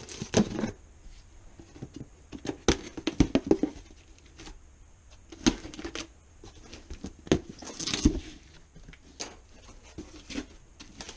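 A blade slitting the packing tape on a large cardboard box, then the cardboard flaps being pulled open: irregular scrapes, taps and rustles of cardboard and tape, the loudest scrape about eight seconds in.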